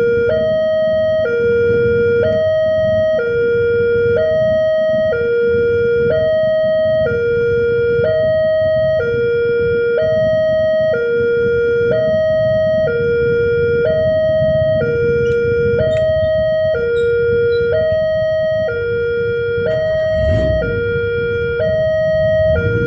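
Railway level-crossing warning alarm sounding: an electronic two-tone signal alternating steadily between a lower and a higher pitch, each held about half a second. A continuous low rumble runs underneath.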